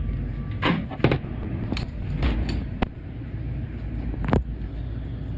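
Transmission clutch plates and steels clinking as they are handled, about seven separate metallic clicks, over a steady low hum.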